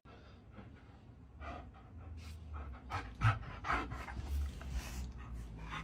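An animal panting: a series of short, irregular breaths.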